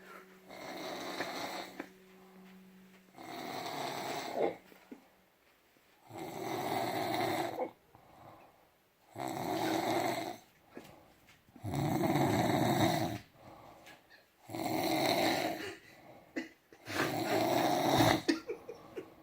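Snoring: seven long, rasping snores, one every two and a half to three seconds, each lasting over a second, with quiet breaths between.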